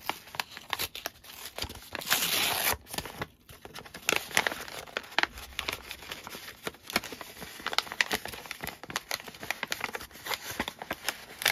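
Close-up rustling and crinkling of a small paper envelope being opened by hand and its contents handled, with a louder, longer rasp of paper about two seconds in, then scattered light rustles and taps.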